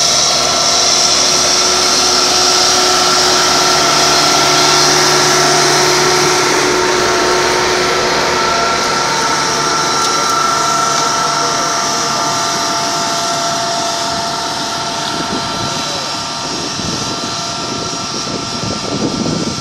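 Kubota M135X tractor's diesel engine running steadily under load as it pulls a seven-shank subsoiler through dry ground. The engine sound eases off over the last several seconds as the tractor moves away.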